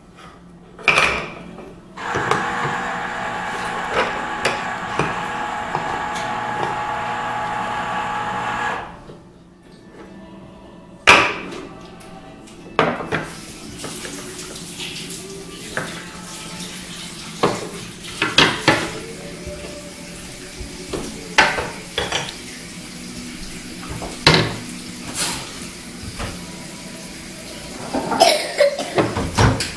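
Small wooden toy dishes, bowls and a wooden spoon knocking and clattering against a wooden play kitchen in separate sharp knocks and clicks. For about seven seconds near the start a steady rushing noise is the loudest sound.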